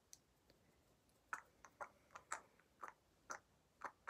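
Faint, short sharp clicks repeating evenly about twice a second, starting a little over a second in, otherwise near silence.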